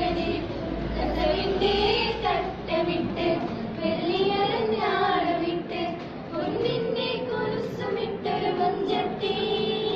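A small group of girls singing a song together, the melody moving in long sung phrases.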